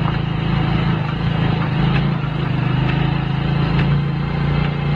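A steady low hum of a running engine, its pitch dropping a little about two seconds in.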